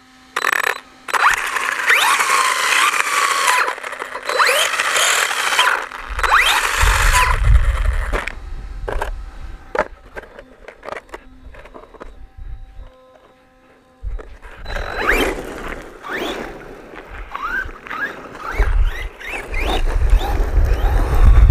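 Electric motor and drivetrain of a 1/10 4WD RC monster truck revving in short bursts, with quick rising and falling whines and clicks, then running again with tyres rumbling on a gravel surface, loudest near the end.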